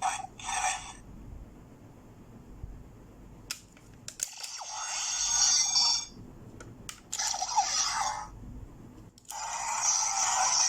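Electronic Kamen Rider Gaia Memory toy sounding through its small speaker: a few sharp plastic clicks, then separate bursts of tinny electronic sound effects, with a longer one starting about nine seconds in.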